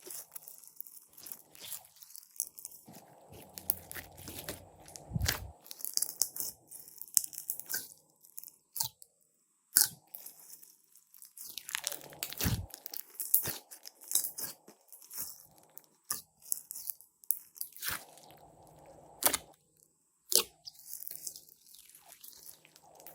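Hands working glossy slime, with irregular sticky clicks, pops and crackles as it is pressed and pulled.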